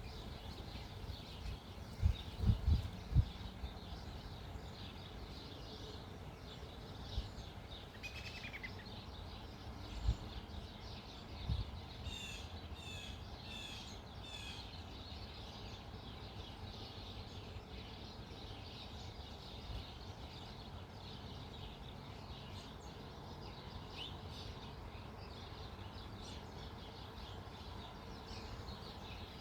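Small wild birds chirping at a backyard feeder: many short, high calls over a steady background hiss, with a run of about five quick repeated notes about twelve seconds in. A few low thumps sound in the first few seconds and again around ten seconds.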